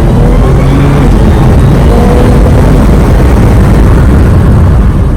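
Car engine running hard and loud, the sound dense and distorted, with brief changes in engine pitch.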